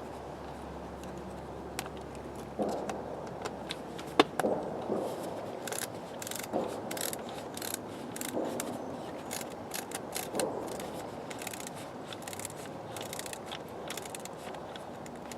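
Short ratcheting screwdriver clicking in irregular runs as it drives in the screws of a power-seat switch, with a few sharper knocks of plastic and metal parts, one loud click about four seconds in.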